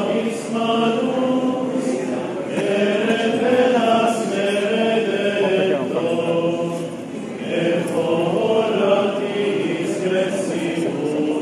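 A group of male clergy chanting a hymn together in unison, in long held notes that step up and down in pitch.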